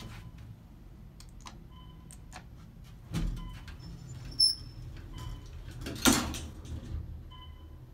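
Westinghouse traction elevator's sliding doors closing, with the loudest bang about six seconds in as they shut, over the steady low hum of the car. A thump about three seconds in and a few short faint beeps.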